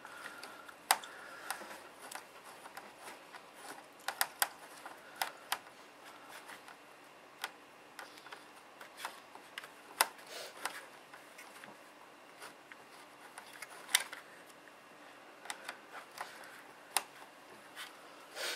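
Irregular sharp clicks and light taps of a screwdriver working small screws out of a laptop's plastic underside.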